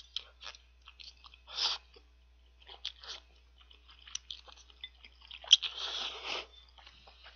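A person eating thick instant beef noodle soup noodles: wet chewing and mouth smacks, a short slurp about a second and a half in, and a longer slurp later on.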